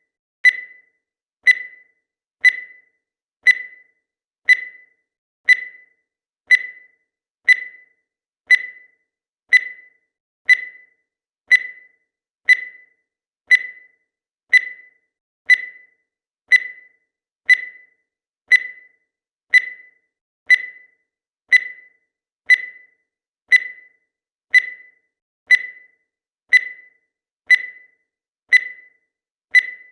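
Countdown timer's electronic tick: a short, high beep that strikes and fades quickly, repeating evenly once a second.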